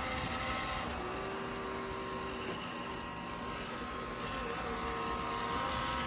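iRobot Roomba j7 robot vacuum driving on a hardwood floor in mapping mode, with its main brushes off: a quiet, steady motor whine that drops in pitch about a second in and rises again near the end as it changes course.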